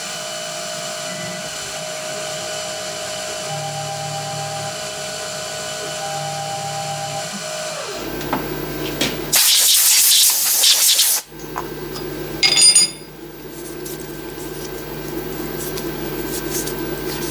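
CNC milling machine's spindle running steadily with a fixed whine as a chamfering tool cuts the outer edge of a composite plastic block. About nine and a half seconds in, a loud hiss lasts nearly two seconds, and after it a lower, steady machine hum runs on.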